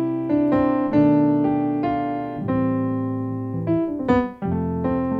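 Piano playing a gospel chord progression, full chords with added extensions struck one after another and left to ring, a quick run of notes about four seconds in before the next chord.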